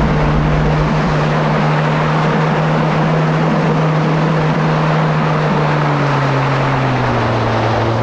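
Kawasaki SX-R 1500 stand-up jet ski's four-cylinder four-stroke engine running at a steady pitch over a constant rushing noise. The engine note drops about six seconds in, then dips and rises slightly near the end.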